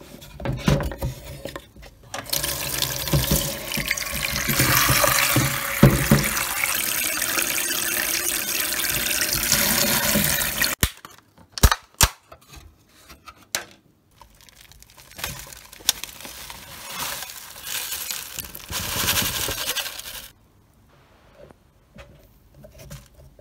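Tap water running into a sink over a wooden box, loud for several seconds. A few sharp knocks follow about halfway through, then the water runs again more quietly.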